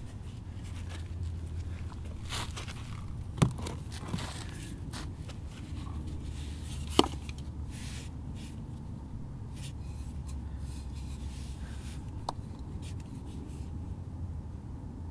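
Handling sounds of hard objects on stone: two sharp knocks a few seconds apart and a lighter one later, between soft rustles and scrapes, as a clay bowl, a stone and pomegranates are set down and picked up. A low steady rumble lies underneath.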